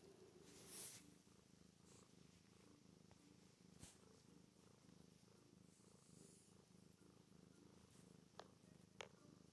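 Domestic cat purring faintly and steadily, close up, with a few small clicks: one about four seconds in and two near the end.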